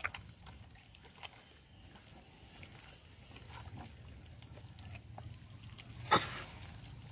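Hand squishing and mixing raw chicken pieces in a wet marinade of flour, spice powder and water in a stainless steel bowl: faint wet squelching with scattered light clicks, and one sharp click a little after six seconds.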